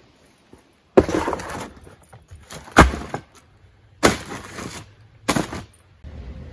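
Firewood being broken up for a fire: four sharp wooden cracks one to two seconds apart, each with a short rustling tail.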